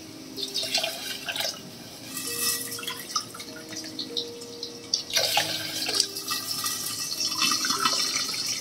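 Hot water poured from a steel kettle into a steel tumbler, glass after glass, splashing as each glass fills. The water is being measured into a pressure cooker of rice.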